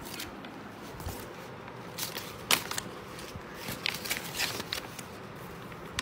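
A baby's hands crumpling and rustling a thin sheet of paper: irregular crackles, the loudest about two and a half seconds in.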